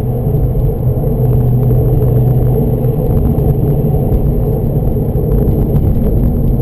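Porsche 996 Turbo's twin-turbo flat-six engine running steadily with tyre and wind roar, heard from inside the cabin while driving.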